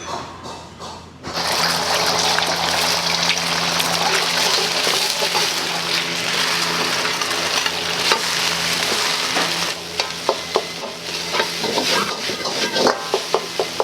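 Food hits a hot oiled wok with a sudden loud sizzle about a second in, then keeps sizzling steadily as it is stir-fried. Near the end a metal ladle clanks against the wok several times.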